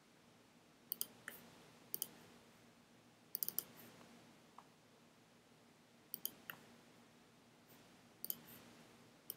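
Faint, sharp clicks of a computer pointer button: about a dozen of them, singly and in quick runs of two or three, every second or two, over a faint steady hum.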